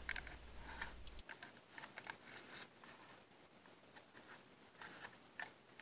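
Faint, scattered small clicks and light taps of fingers handling a plastic HO-scale model locomotive shell, over quiet room hiss.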